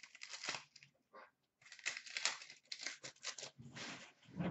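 A 2015-16 Upper Deck Series 2 hockey card pack being torn open by hand, the wrapper tearing and crinkling in several short, irregular bursts.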